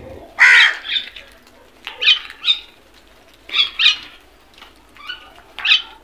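House crows cawing: about seven harsh caws, several in quick pairs, the loudest about half a second in.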